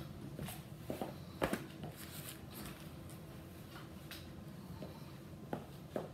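Faint, irregular footsteps and knocks of boots on the floor as someone walks and turns in run-over boots, several short thuds spaced unevenly through the stretch.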